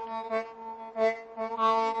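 Harmonica playing a held chord in repeated pulses of breath, with a longer, louder swell in the second half.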